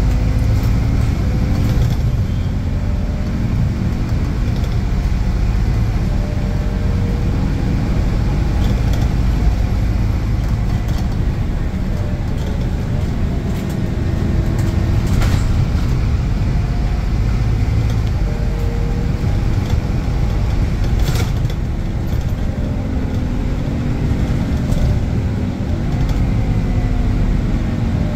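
Scania K280UB bus's diesel engine and ZF automatic gearbox under way, the engine pitch rising as it pulls and dropping at gear changes, over and over. Two sharp knocks or rattles come through, one about halfway and one about three-quarters of the way in.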